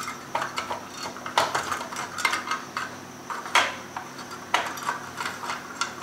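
A screwdriver unscrewing the two screws that hold the CPU fan cover inside a Dell Optiplex 745 desktop case: irregular clicks, scrapes and light metallic clinks, with a couple of louder knocks.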